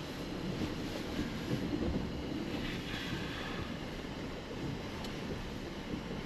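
Inside the cabin of an SUV creeping along an off-road track: a steady low rumble of tyres and running gear.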